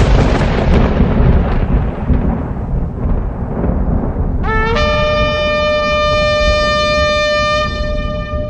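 Thunder rumbling and dying away, then about halfway through a shofar blast: one long note that scoops up in pitch and then holds steady for about four seconds.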